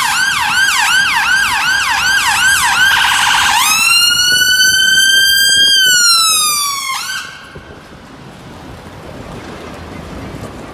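An ambulance siren, loud and close. It opens on a fast yelp of about three sweeps a second, changes about four seconds in to one slow rising-and-falling wail, and cuts off about seven seconds in. Low street traffic noise is left after it.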